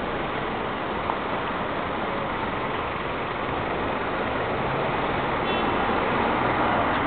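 Kymco Quannon 125 motorcycle's single-cylinder engine idling steadily, under a wash of street noise.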